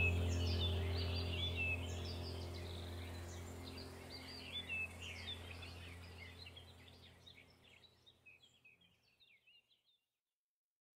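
Small birds chirping over a steady low hum, both fading out gradually to silence near the end.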